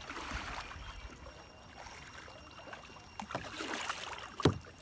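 Double-bladed paddles of a tandem kayak dipping and pulling through calm water, with soft swishes, splashes and drips. A louder, sharper stroke comes near the end.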